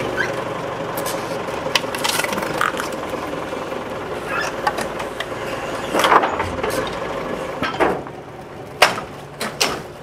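Forklift engine running steadily, with occasional knocks and clatter. The engine noise drops away about eight seconds in, and a few sharp knocks follow.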